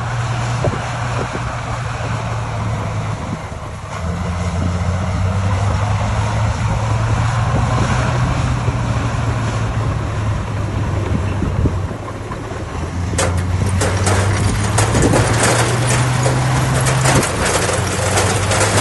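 Heavy diesel engine of earthmoving machinery running under load, its note stepping up about four seconds in and dropping briefly around twelve seconds. From about thirteen seconds in, a dense run of clanking and rattling sounds over the engine.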